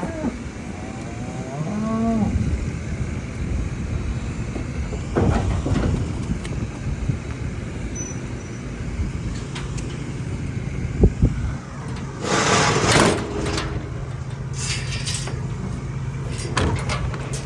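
A vehicle engine running steadily, with a cow mooing once, briefly and rising, about two seconds in. A loud burst of hissing comes about two thirds of the way through.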